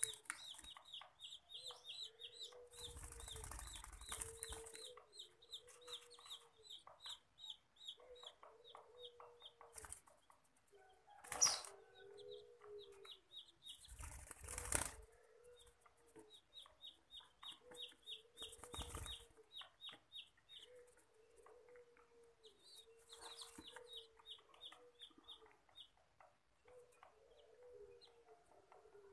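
Zebra dove chick's begging calls while being hand-fed: runs of rapid, high, short peeps, about five a second, coming and going over a lower wavering call. A few louder bursts of noise, the sharpest about eleven seconds in.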